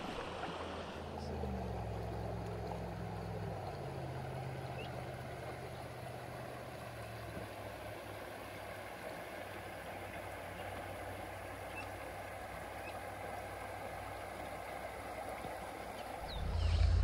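Shallow stream running over a riffle: a steady rush of moving water, with a low rumble under it in the first few seconds and a much stronger low rumble just before the end.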